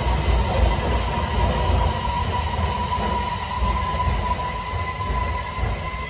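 Beijing Subway Line 8 train moving alongside the platform: a low rumble with a steady whine over it, getting gradually quieter toward the end.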